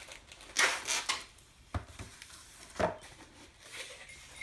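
Handling noise from the award plaque and its packaging: a rustle about half a second in, then two light knocks about a second apart, and small clinks and rustles after.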